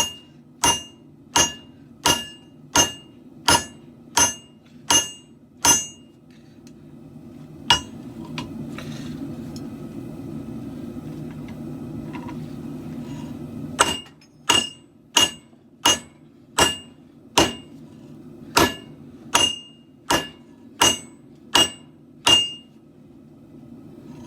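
Hand hammer striking a hot steel katana blade on an anvil, ringing blows at a steady pace of about one and a half a second. A run of about nine blows is followed by a single blow, a pause of about six seconds, then about a dozen more. A steady low rumble runs underneath.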